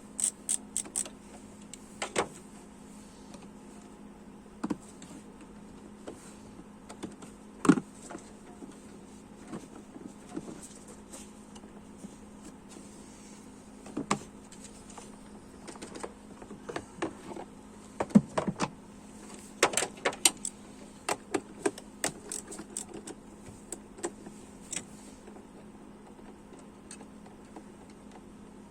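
Scattered clicks and knocks of hand tools and fittings as the engine cover is taken off a BMW M52 engine, over a steady low hum. The loudest knocks come about 8 and 18 seconds in, followed by a quick run of clicks.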